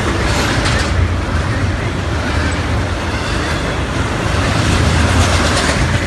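Norfolk Southern double-stack intermodal freight cars rolling past on the rails: a steady, loud rumble of steel wheels on track with rattling from the cars, and brief clatter about half a second in and again near the end.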